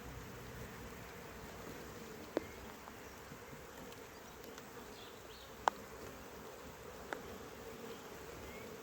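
Honeybees buzzing steadily around the hives, with three short sharp knocks spread through.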